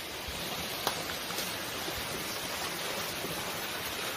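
Steady rush of running water, with a single sharp click about a second in.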